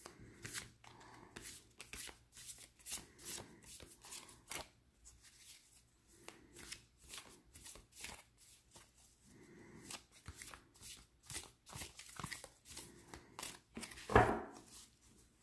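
A thin, glossy tarot deck, Tarot in Wonderland, shuffled by hand: a steady run of light card slaps and flicks, with one louder knock near the end.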